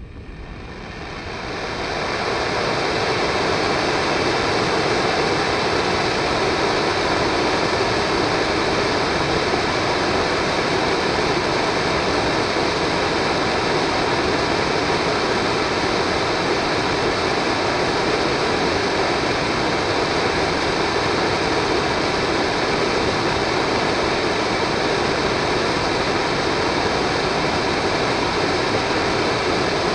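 Solid-fuel model rocket engine burning: a steady rush of noise that swells in over the first two seconds and then holds even.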